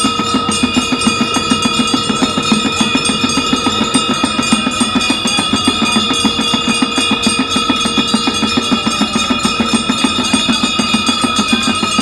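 Several conch shells blown together in one long, steady tone, over a fast, even beat of ringing bells and percussion, during a Hindu aarti ritual.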